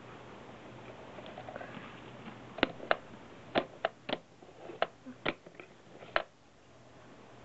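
A run of about nine sharp clicks and knocks from a toy cat coin bank ('itazura bank') being pressed and handled, starting about two and a half seconds in and stopping after about three and a half seconds.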